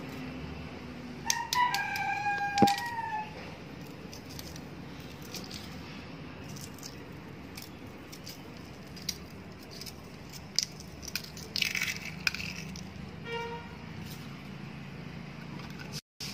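A rooster crows once, about a second in, a call of about two seconds, with a sharp click during it. Scattered short clicks follow over a steady low hum.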